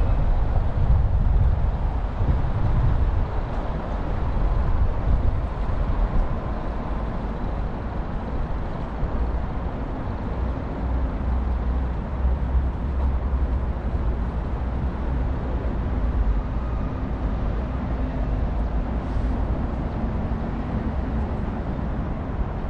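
Steady city road traffic: cars and buses running past in a low rumble, with an engine hum coming in about halfway through.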